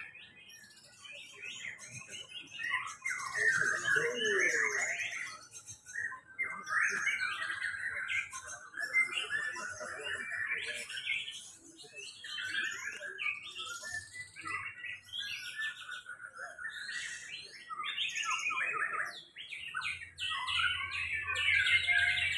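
Several caged white-rumped shamas (murai batu) singing at once in a song contest: many overlapping whistled and chirping phrases with no pause.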